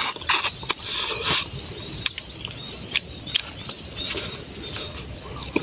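Close mouth sounds of a man chewing a bite of fried banana coated in palm sugar: irregular wet smacks and clicks with short hissy bursts.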